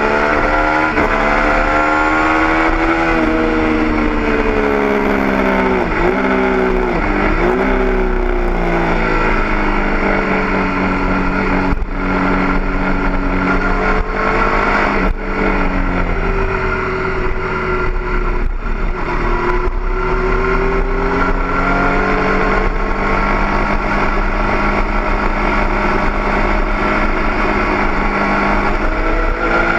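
Triumph Daytona 675's three-cylinder engine at full track pace, heard from on board: the revs climb and fall again and again as the bike accelerates and slows for corners, with quick breaks at gear changes about twelve and fifteen seconds in.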